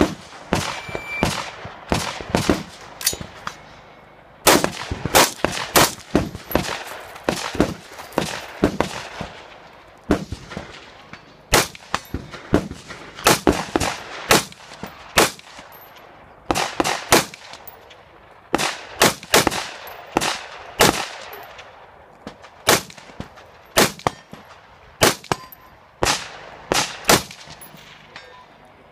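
Rapid semi-automatic rifle fire in quick strings of shots, with short pauses between the strings. A short metallic ring about a second in is typical of a bullet striking a steel target.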